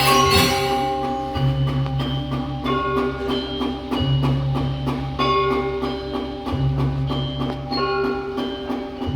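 Background music: bell-like and plucked melody notes over a held bass that changes about every two and a half seconds, with a steady light percussion tick.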